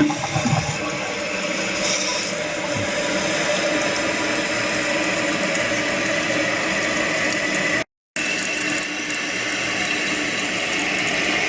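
Toilet tank refilling through the fill valve after a flush: a steady rush and hiss of water.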